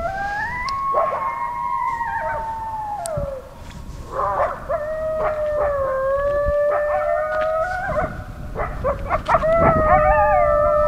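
A pack of dogs howling together: several long, overlapping howls that slide slowly down in pitch, with a brief lull about four seconds in before the chorus swells again.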